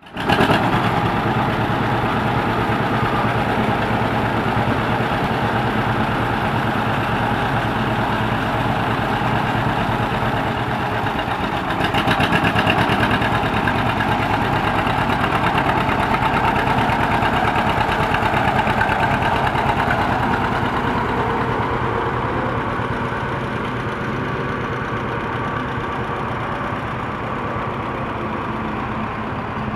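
1955 John Deere Model 50's two-cylinder engine running at low speed with an even, rapid exhaust beat as the tractor drives slowly. It grows louder about halfway through, then fades gradually as the tractor pulls away.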